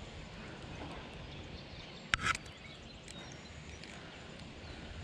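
Spinning reel handled during a retrieve, with one short sharp click about two seconds in, over a steady outdoor background hiss.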